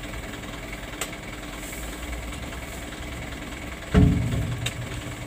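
Truck engine idling steadily, with a heavy thud about four seconds in as an oil palm fruit bunch lands in the truck's cargo bed.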